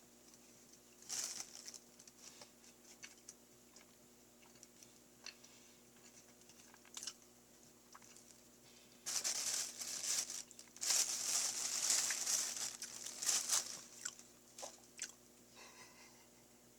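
Close-miked eating of Choco Pie: scattered chewing and biting noises, then a louder, denser run of crunching and crinkling from about nine seconds in until about fourteen seconds.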